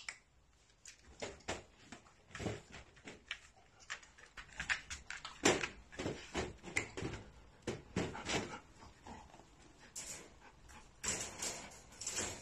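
A dog moving in and out of a metal wire crate, making many irregular clicks, knocks and rattles as it steps.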